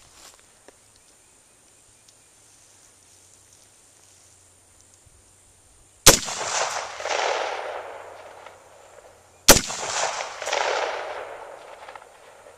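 AR-15 rifle fired twice, about six seconds in and again some three and a half seconds later, each shot followed by a long echoing tail.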